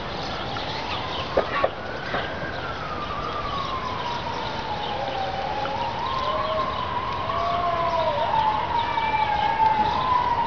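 Emergency-vehicle siren wailing, its pitch slowly rising and falling and growing louder toward the end. Two sharp knocks about a second and a half in.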